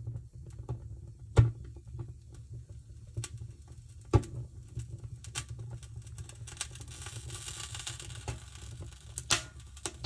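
Split-kindling fire burning in a wood stove: irregular sharp crackles and pops, the loudest about one and a half seconds in, at about four seconds and near the end, over a low steady rumble.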